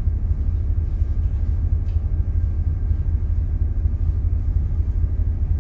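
Steady low rumble of a ship underway, heard inside its bridge, with a faint steady hum higher up.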